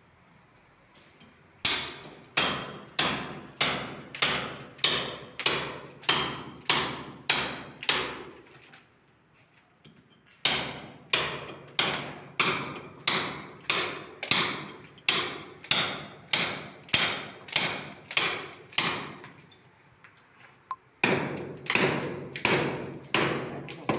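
Hammer blows on a chisel, cutting a channel into a masonry wall for wiring. The sharp, ringing strikes come at about two a second, in three runs with short pauses between them.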